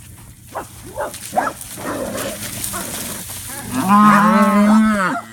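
A cow mooing: one long call, about a second and a half, starting near the end, after a few short sharp clicks.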